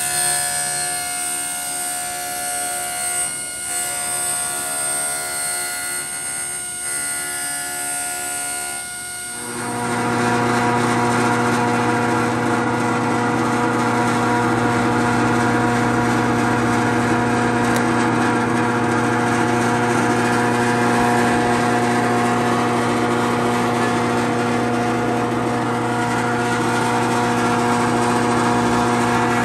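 Electric power tools working a half-inch PVC sheet: a table saw running through the board. About ten seconds in, a louder, steady drill press motor takes over with a strong hum, boring holes along the traced outline.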